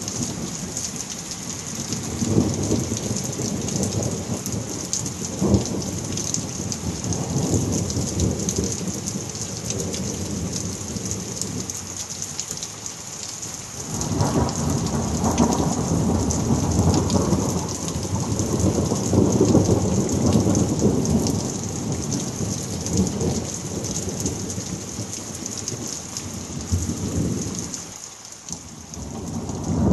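Thunderstorm: a heavy downpour hissing steadily under almost continuous rolling thunder. A long, strong roll of thunder starts about halfway through, and the rumbling eases briefly near the end before building again.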